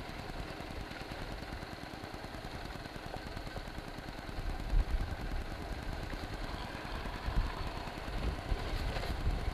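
Honda Shadow 750's V-twin engine running as the motorcycle is ridden along a narrow, rough road, with a couple of louder low thumps about halfway and near the end.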